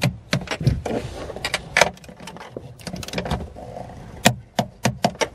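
Ratcheting torque wrench clicking in quick, irregular runs as it tightens the rear shock-mount nuts.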